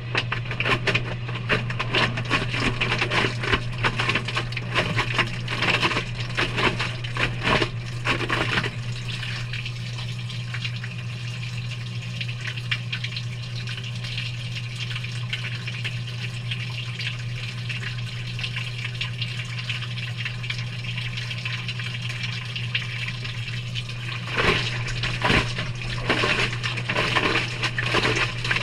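Water and wet laundry sloshing and tumbling inside a Maytag front-loading washer drum during a delicate cycle, over a steady low hum. The sloshing is busy for the first eight seconds or so, settles to a quieter wash for most of the middle, and picks up again about 24 seconds in, as the drum turns, pauses and turns again.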